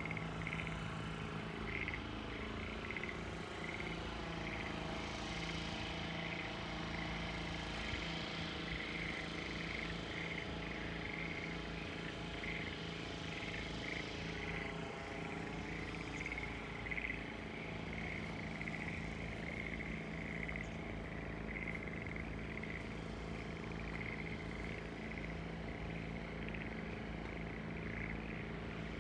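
Frogs in flooded rice paddies calling in a chorus of short, rapidly repeated croaks, over a steady low hum.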